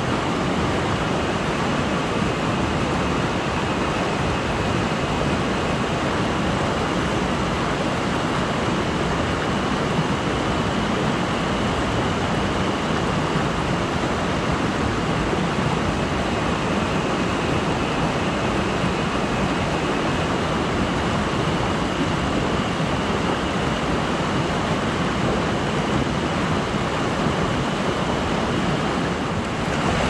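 Mountain stream rushing: a steady, fairly loud wash of water noise that holds unchanged throughout.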